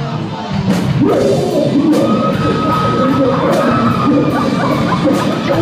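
Live rock band with electric guitars and drums playing, a singer's voice coming in loudly about a second in, heard from among the audience in a school hall.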